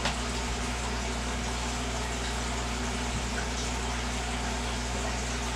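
Steady bubbling of an aquarium bubble bar releasing streams of air bubbles through the tank water, with a low steady hum underneath.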